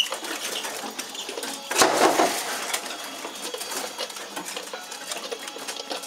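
A siskin hopping and fluttering about a wire show cage: light clicks and taps of its feet on the perches and bars, with a louder flurry of wings about two seconds in.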